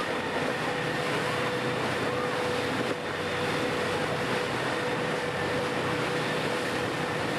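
Steady rush of a motor yacht under way at speed, wind and water noise over a low engine hum, with a thin steady whine running through it.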